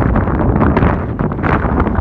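Wind buffeting the microphone: a loud, gusty rumble with no pause.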